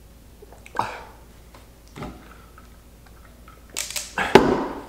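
Paper rustling and crackling as a spiral notebook is handled, loudest for about a second near the end, after a couple of short soft noises.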